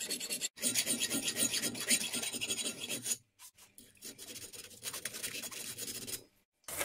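Round metal file rasping back and forth through a hole in a hardened-steel cleaver blade, in quick repeated strokes. After a short silence about three seconds in, a softer, duller rubbing follows as sandpaper rolled on a dowel works the inside of a smaller hole.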